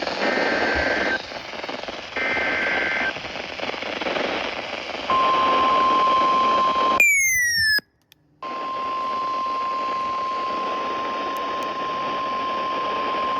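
The last two bursts of an Emergency Alert System header, warbling data bursts about a second long and a second apart, over radio hiss. They are followed by the steady 1050 Hz weather-radio warning alarm tone, broken by a short falling chirp and a half-second dropout about 7 to 8 seconds in.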